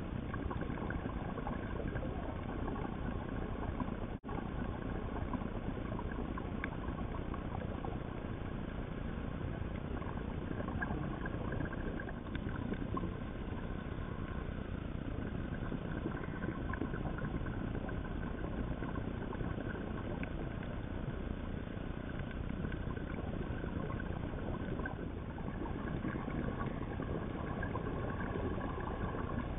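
Steady underwater noise picked up by a camera sealed in its housing: a low rumble and hiss with a faint steady hum in it, and a brief dropout about four seconds in.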